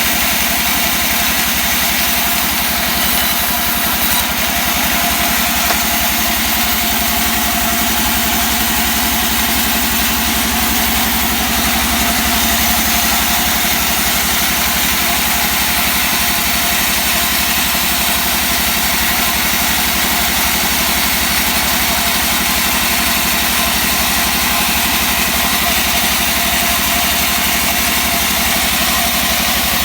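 Engine-powered wood saw running steadily without a break, cutting mahogany timber.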